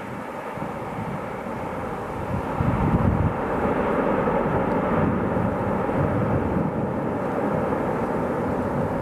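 Boeing 787-9 jet engines running during the landing roll just after touchdown, a broad rumble with a steady whine that grows louder about two and a half seconds in.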